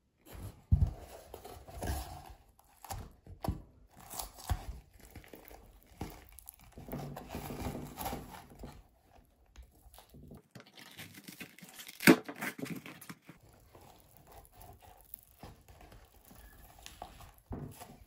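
Frozen popsicles being worked out of a silicone popsicle mold by hand: the plastic stick holders knock and scrape against the mold, with crinkly rubbing throughout and a sharp click about twelve seconds in.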